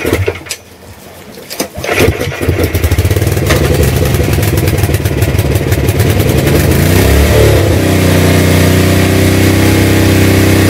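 Tecumseh OHM110 four-stroke, single-cylinder engine on a portable generator being pull-started after a fuel-system and carburetor repair. A first pull at the start, then a second pull about two seconds in catches and the engine runs. About seven seconds in its speed rises and it settles into a steady run.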